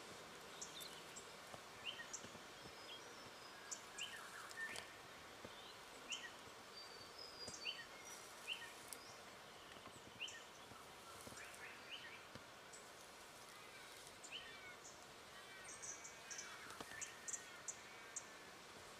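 Faint background birdsong: many short high chirps and whistles from wild birds, busier near the end, over a low steady outdoor hiss with a few faint clicks.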